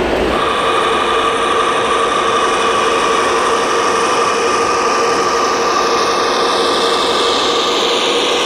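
1/14-scale RC Scania truck driving, its motor and drivetrain giving a steady mechanical whine.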